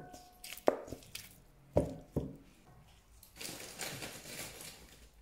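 Raw chicken leg quarters set down in a stainless steel bowl: three soft, wet knocks, the first leaving the bowl ringing briefly. About three seconds in, salt is sprinkled over the chicken with a soft hiss of falling grains lasting under two seconds.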